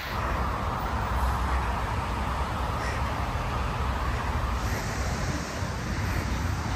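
Cicadas droning steadily in summer trees, over a low wind rumble on the phone's microphone while running.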